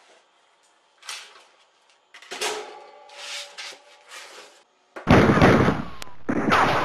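Scuffling and rustling of someone moving about, then two loud bursts of gunfire about a second each; the second cuts off abruptly.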